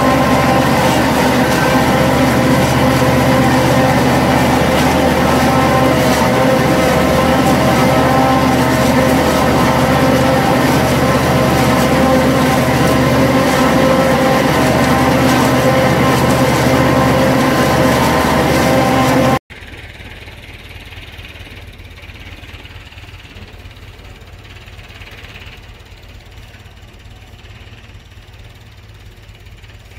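Farm machinery working corn silage: a loud, steady engine and machine drive with several steady whining tones. About two-thirds of the way through it cuts off abruptly to a quieter, steady engine sound.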